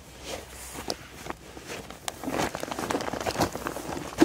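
Irregular rustling and soft knocks of someone shifting about and handling gear inside a small nylon tent, growing busier about two seconds in.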